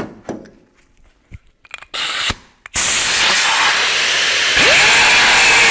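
Air-powered cutoff wheel cutting into a steel frame rivet. A short blip of the tool comes about two seconds in, then a loud, steady hissing cut from about three seconds in, with a tone that rises and then holds near the end.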